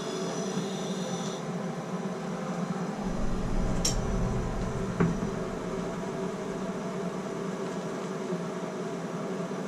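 Plumber's hand torch flame running steadily while it heats a brass tub and shower valve body for soldering. A low rumble comes in for a few seconds in the middle, and there is a sharp click about five seconds in.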